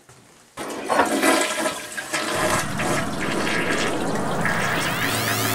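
Household toilet flushing: after a short pause the flush starts with a rush of water that swirls and drains for several seconds. A rising whistle comes in near the end.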